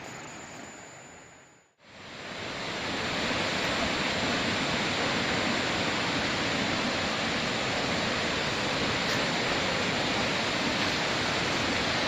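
Steady rush of a waterfall. It fades in about two seconds in, after a brief dip to silence.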